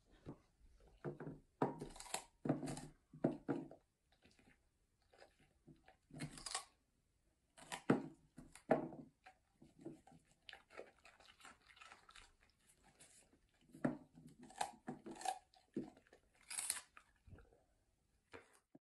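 German Shepherd dog chewing and crunching food in irregular bursts of crunches and mouth sounds.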